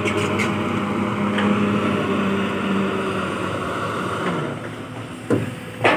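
Kobelco SK210-8 long-reach excavator's diesel engine running steadily as it digs, easing off slightly after about four seconds. Two sharp knocks near the end are the loudest sounds.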